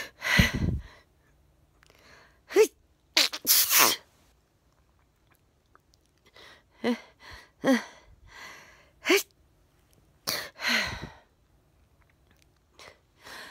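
A woman's repeated sneezes in a fit, with loud sneeze blasts a few seconds apart and short gasping intakes of breath between them.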